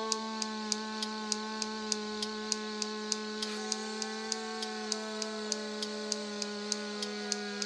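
Soft background music: a sustained drone chord with a light tick repeating about three times a second. The upper notes of the chord change about three and a half seconds in.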